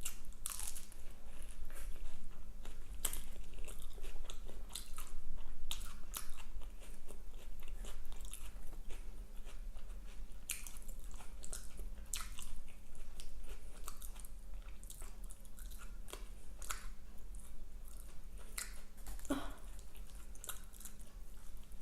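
Close-miked chewing of fast food: a steady run of crisp crunches and sharp mouth clicks, with a low steady hum beneath.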